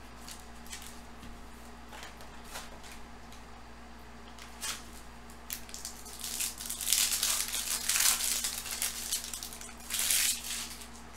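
Plastic wrapping crinkling and tearing as a sealed trading card hobby box is opened, sparse at first, then loudest and densest from about six to eight and a half seconds in and again briefly around ten seconds.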